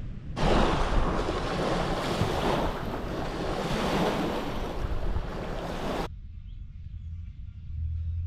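Lake waves washing onto the shore with wind on the microphone, a steady rushing noise that cuts off abruptly about six seconds in, leaving a quieter low rumble and a faint bird chirp.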